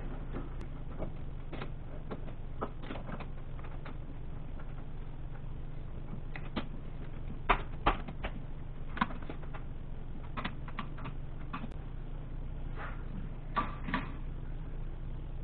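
Chuck key working the jaw screws of a four-jaw lathe chuck, with scattered metal clicks and knocks as the jaws are snugged against a cast-iron press plate; the sharpest knocks come about halfway through and again near the end. A low steady hum runs underneath.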